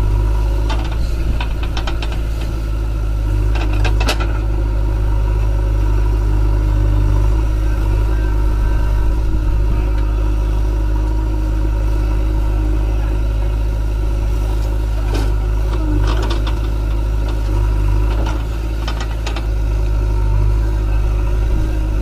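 Heavy machine engine running steadily with a deep hum, with a few sharp knocks or clanks scattered through, a cluster around four seconds in and more between about 15 and 19 seconds.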